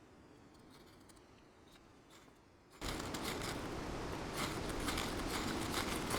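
Faint scraping and rustling, then about three seconds in a sudden jump to a steady rush of wind-driven rain with many sharp, dense ticks.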